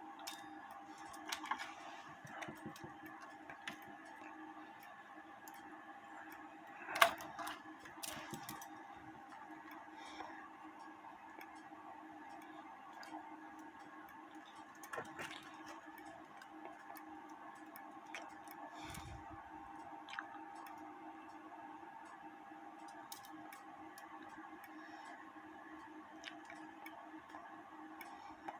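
Antique cuckoo clock movement ticking softly, with scattered small metallic clicks from its levers being handled and one sharper clack about seven seconds in. A faint steady hum runs underneath.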